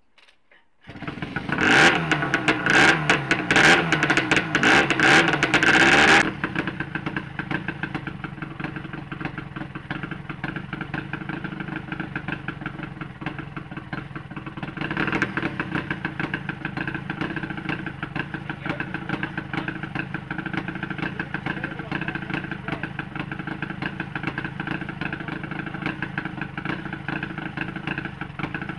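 Scott TT Replica two-stroke twin motorcycle engine, with a freshly rebuilt top end, firing up about a second in. It runs fast and loud for about five seconds, then settles to a steady idle.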